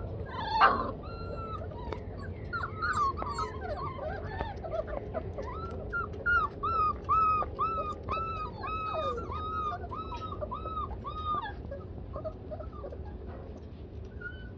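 Four-week-old Labrador puppies whimpering and yipping in play: short, high whines, scattered at first, then an even run of about two a second that stops a few seconds before the end. One loud, sharp sound comes about half a second in.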